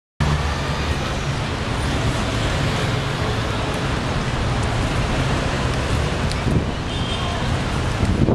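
Busy city street: steady traffic noise with a strong low rumble, cutting in suddenly just after the start.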